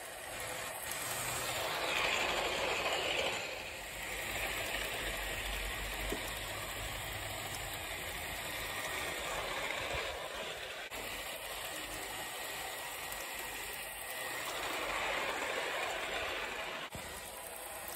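Heljan OO gauge class 86 model electric locomotive and its coaches running over sectional track laid on a wooden floor: a steady running rumble of motor and wheels on rail, growing louder twice as the train passes close.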